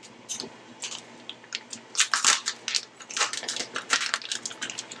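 Plastic wrapping on a one-pound package of ground beef crinkling and tearing as it is peeled open by hand, a run of irregular crackles that grows busier about two seconds in.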